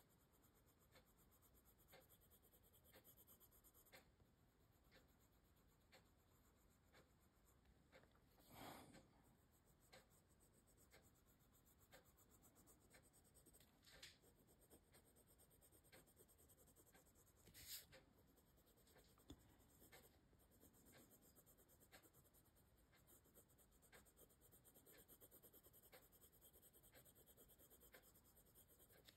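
Very faint scratching of a Prismacolor colored pencil shading on paper, with a few slightly louder soft strokes about a third and again about half way through.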